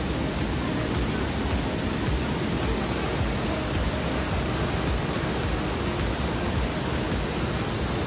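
The Rhine Falls' water rushing down close up: a steady, dense rush of noise, heaviest in the low range.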